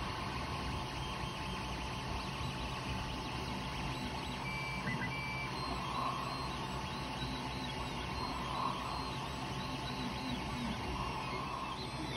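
Creality Ender 3 Pro 3D printer printing: a steady whir from its hotend and part-cooling fans, with the stepper motors whining in short rising and falling tones as the print head moves.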